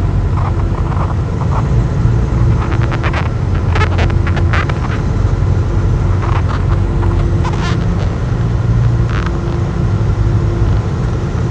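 Truck cab noise while driving: a steady low engine and road rumble, with scattered light clicks.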